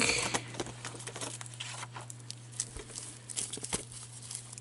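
Packaging crinkling and rustling as it is handled by hand, with scattered small clicks and a brief louder rustle right at the start.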